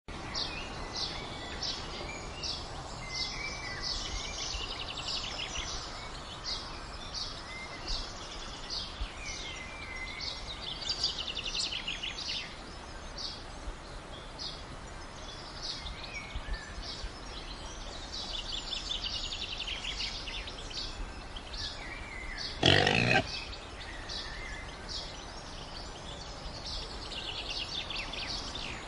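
Birds chirping and singing throughout, with one short, loud call from a domestic pig near the end.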